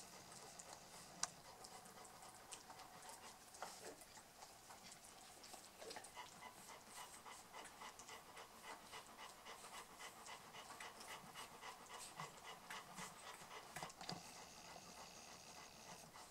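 Newborn Tornjak puppies suckling at their mother: a faint run of quick, wet sucking clicks at about four or five a second, with one sharper click about a second in.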